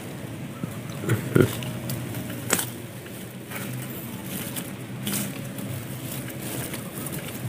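Plants and leaves rustling, with a few sharp handling clicks and knocks as the stems are pushed aside, the loudest about a second and a half in, over a steady low hum.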